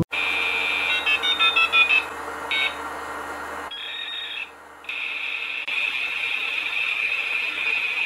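A steady high-pitched electronic tone with a quick run of short beeps about a second in; the tone cuts out briefly about halfway through, then holds steady.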